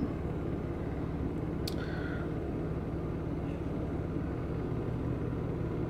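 Steady low background hum, with one brief sharp click a little under two seconds in.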